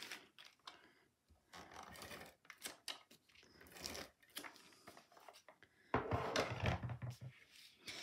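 Adhesive tape runner rolled along a cardstock tab, with faint scraping and clicking of the dispenser and paper. About six seconds in, a louder second or so of card rustling and light knocks on the table.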